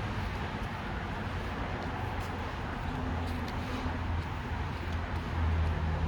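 Steady vehicle running noise: a constant low hum under a rushing background haze, with a few faint ticks.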